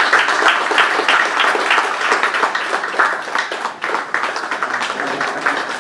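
Audience applauding: many hands clapping in a dense, even patter that gradually gets quieter toward the end.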